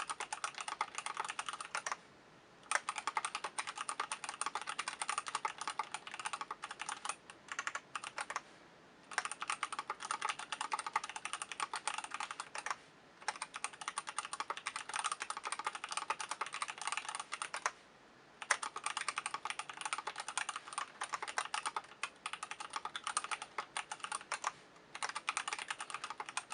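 Fast typing on a 60% mechanical keyboard in a stacked acrylic case with stock 67 g C3 Kiwi tactile switches on a Delrin plate and DSA-profile keycaps: a dense run of keystroke clacks, broken by a few short pauses of under a second.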